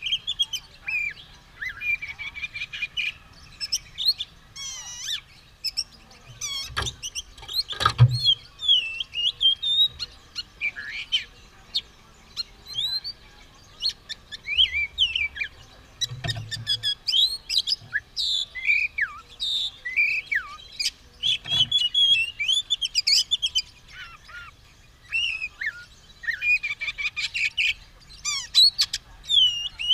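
Oriental magpie-robin (kacer) singing a long, varied song of quick whistles and chirps, with hardly a pause. A few dull thumps come in between, around a quarter and halfway through and again later.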